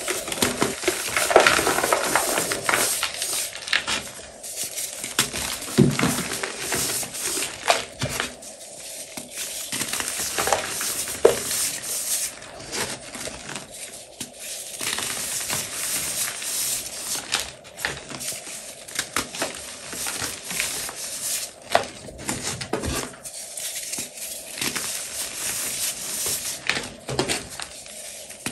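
Blocks of reformed gym chalk being snapped and crushed between the fingers: crunchy cracks and sandy, soft crumbling of the powder, coming in irregular bursts.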